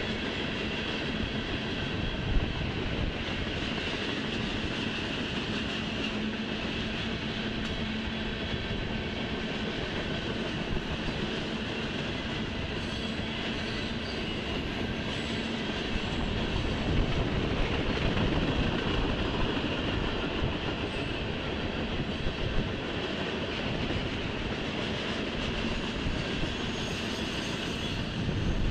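Freight train's covered hopper cars rolling past, a steady rumble and clatter of steel wheels on the rails, growing a little louder about two-thirds of the way through.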